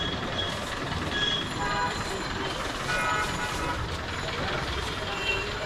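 Busy street noise: a steady traffic rumble with people chattering in the background and a few short horn toots.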